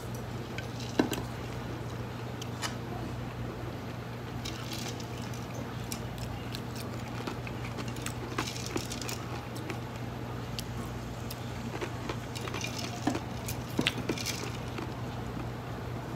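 Restaurant room tone: a steady low hum, with scattered light clicks and clinks of tableware and a few short rustles. The sharpest click comes about a second in.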